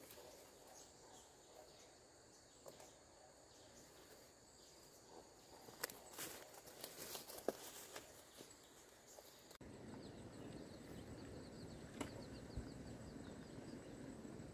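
Quiet outdoor ambience with faint insects buzzing, and a few sharp rustles and snaps of plant stems around the middle. The background noise grows a little fuller in the last few seconds.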